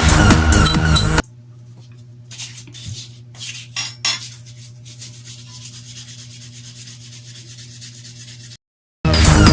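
Electronic dance music for about a second, then it cuts to a steady low hum with a few short rubbing and scraping strokes: hand cleaning and polishing a bicycle crankset. The strokes come between about two and four seconds in. Near the end there is a moment of dead silence before the music comes back.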